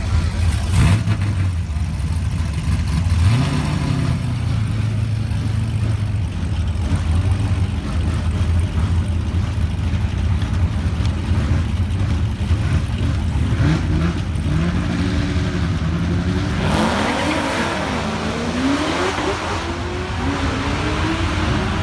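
GM LS V8 engines running with a steady low idle note, one rev about three seconds in, then a run of revs rising and falling in pitch, loudest in the last few seconds.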